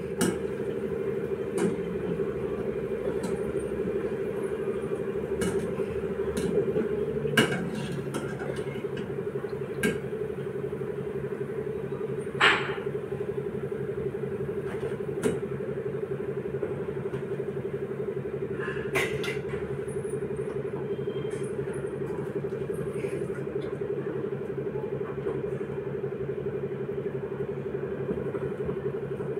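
A wire spider strainer clinking against an iron kadhai a handful of times while fried dal vadas are lifted out of the oil, over a steady low hum.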